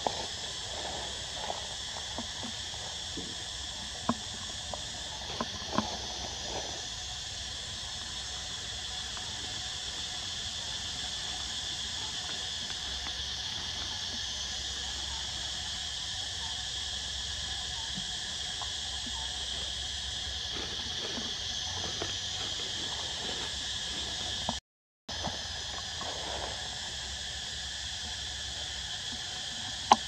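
Steady insect chorus, a constant high drone. Over it come scattered soft crackles of dry leaf litter as a macaque moves through the undergrowth. The sound cuts out for a moment about three quarters of the way through.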